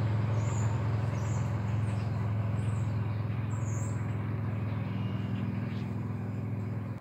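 A vehicle engine running with a steady low hum, easing off slightly, then cutting off suddenly at the end. A few short bird chirps sound high above it.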